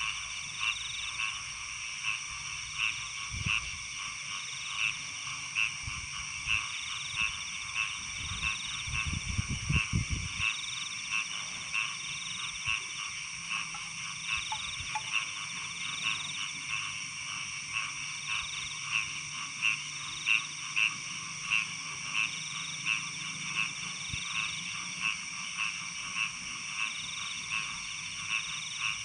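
Repeated animal calls, about one a second, over a steady high-pitched chorus. A brief low rumble comes about nine seconds in.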